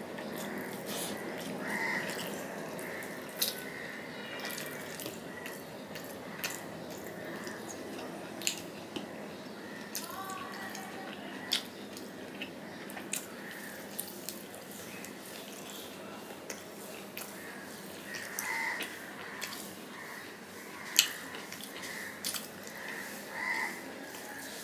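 Close-up wet eating sounds: chewing with scattered lip smacks and mouth clicks, and fingers squishing rice and curry on a stainless steel plate, over a steady low hiss.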